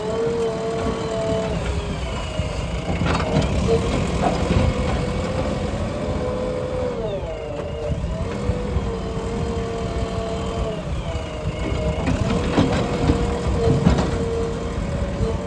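The diesel engine of a JCB earthmover running steadily under load, its pitch sagging and recovering about halfway through, with a few sharp knocks along the way.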